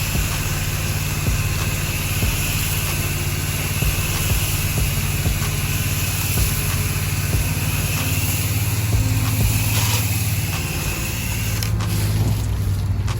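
Small engine of a pressure-washing rig running steadily, with a constant hiss of water spray that thins out shortly before the end.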